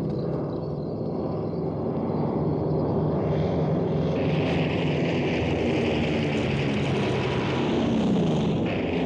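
Propeller aircraft engines droning overhead, a hiss growing stronger about halfway through and the pitch dropping near the end as the planes pass over.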